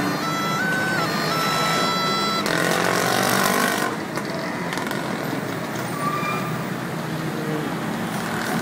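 Snake charmer's gourd pipe (pungi) playing a held reedy tone with small steps in pitch, which stops about two and a half seconds in. A louder rushing noise then swells for about a second and a half, followed by steady street background noise.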